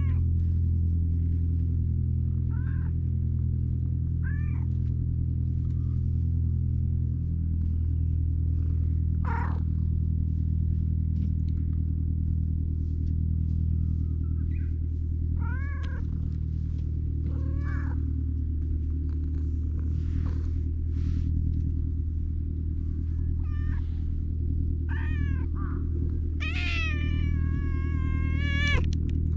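Stray domestic cat meowing repeatedly: about ten short meows a few seconds apart, then one long, drawn-out meow near the end.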